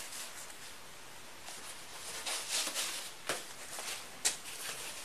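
Soft rustling and handling noises close to a body-worn camera, with two sharp clicks about three and four seconds in.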